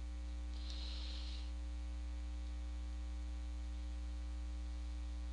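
Steady electrical mains hum with a faint hiss under it, with a brief soft hiss about a second in.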